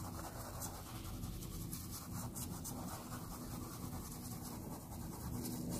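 Faint scratchy rubbing of a paintbrush worked in small circles over a cloth towel, blending paint into the fabric.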